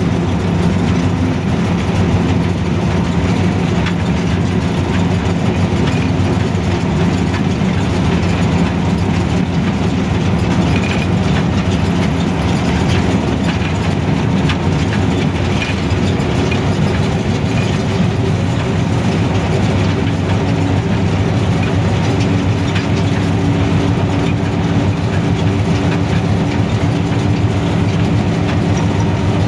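HBU 20 diesel locomotive running steadily under way, heard from inside its cab: a constant low engine drone over the noise of the train on the track, holding the same pitch throughout.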